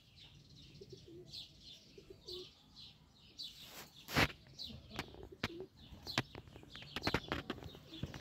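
Domestic pigeons cooing softly in a loft, with repeated high chirps in the first few seconds. From about halfway on, a string of sharp clicks and knocks, the loudest about four seconds in.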